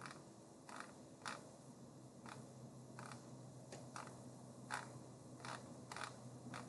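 Faint, irregular clicks of a computer mouse, about a dozen spread over several seconds, over a low steady hum.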